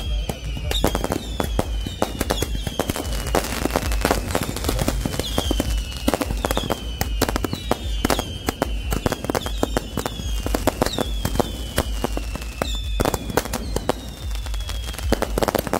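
Fireworks display going off: a dense, continuous string of bangs and crackles, with repeated falling whistles about once a second.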